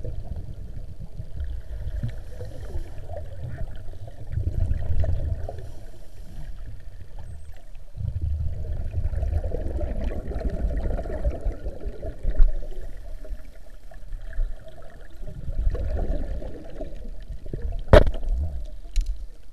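Scuba diver's exhaled bubbles from a regulator underwater: low bubbling bursts that swell and fade every few seconds, with one sharp knock near the end.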